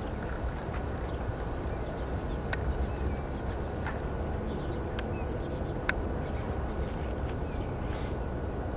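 Steady low outdoor background rumble, with a few faint bird chirps and a handful of light clicks scattered through it.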